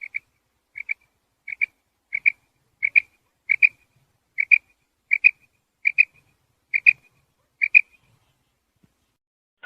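Female quail calling: a short two-note call repeated evenly about every three-quarters of a second, a dozen times, then stopping about eight seconds in. This is the call used to lure male quail.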